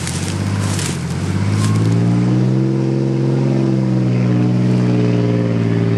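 Pickup truck engine revving up over the first couple of seconds and then held at high revs under load, the truck stuck in a mud rut and straining to pull free.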